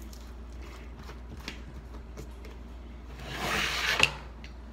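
Plastic screw cap being twisted off a large jug of Elmer's school glue: faint scattered clicks, then a louder rubbing rasp about three seconds in that ends in a sharp click.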